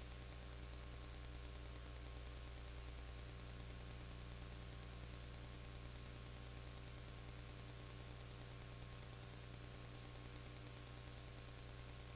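Steady electrical mains hum with an even layer of hiss, unchanging throughout, with no crowd, whistle or game sound heard above it.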